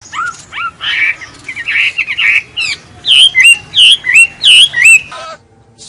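Birds calling: a busy series of short chirps, then a louder run of about five repeated swooping calls in the second half.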